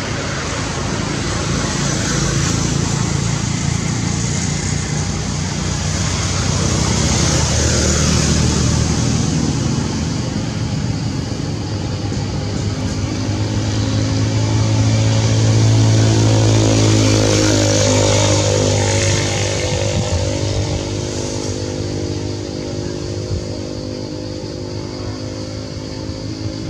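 Motor vehicle engine running nearby, growing louder twice and loudest a little past the middle, its pitch shifting as it passes, then fading somewhat.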